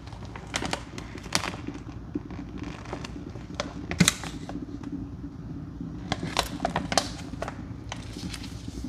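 Thick soapy baking-soda cleaning paste being worked by hand. Irregular wet clicks and crackles, the sharpest about four seconds in and a cluster of them around six to seven seconds.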